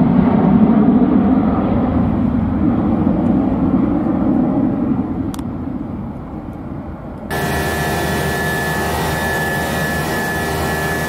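Jet noise of an Embraer KC-390's two IAE V2500 turbofans as the transport flies past overhead, fading over several seconds. About seven seconds in it cuts suddenly to the steady hiss of the aircraft's flight deck in flight, with several steady whining tones through it.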